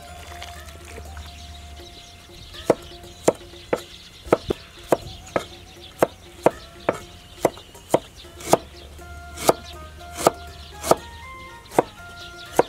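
Chinese cleaver chopping on a thick round wooden chopping block, slicing garlic and then dicing ginger: sharp knocks, roughly two a second, starting about two and a half seconds in.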